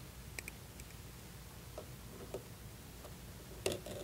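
Faint, scattered small metallic clicks and taps of a hand tool working a pivot bolt on a steel vent window frame, with one sharper click near the end.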